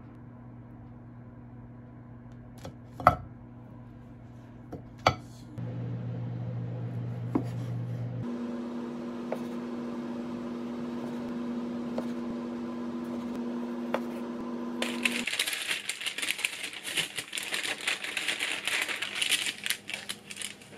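Kitchen food-preparation handling sounds over a steady low hum. There are two sharp knocks a few seconds in and a few light knife ticks on a wooden board. In the last few seconds comes a stretch of crisp crackling and rustling of parchment paper around a baked croissant.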